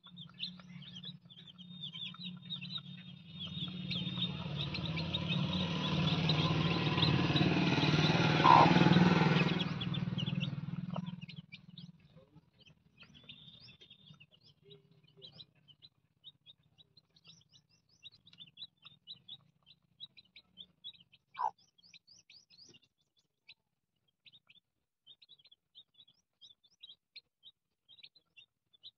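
Chicks peeping in many short, high cheeps throughout. Over the first several seconds a louder rushing noise with a low hum builds up, then stops about eleven seconds in.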